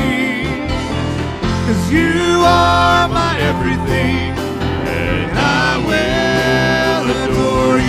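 Live worship music: singers with vibrato carrying the melody over acoustic guitar and band accompaniment, steady and full throughout.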